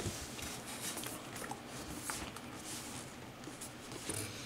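Faint handling noise of a cardboard sneaker box: a few soft taps and rustles.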